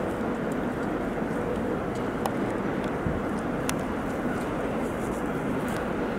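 A ChME3T diesel-electric shunting locomotive's diesel engine running steadily as the locomotive moves slowly at shunting speed, with two or three sharp clicks partway through.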